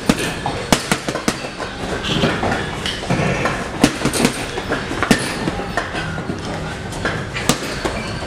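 Boxing gloves striking a hanging heavy punchbag, a run of sharp slaps and thuds at uneven spacing, over steady background noise.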